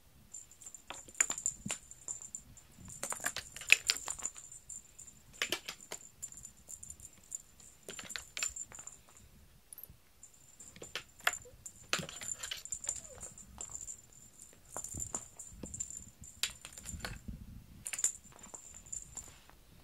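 Feathered cat teaser (wand toy) being jiggled and dragged about on the floor: irregular rattling clicks and rustles. A thin high whine runs behind much of it, breaking off briefly around the middle.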